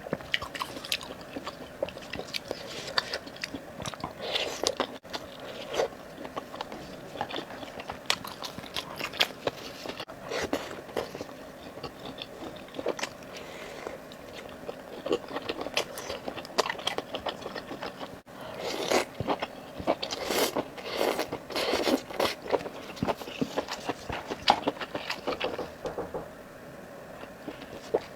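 Close-miked eating: a person biting and chewing food, with many short crunches and wet mouth clicks, thickest a little past the middle.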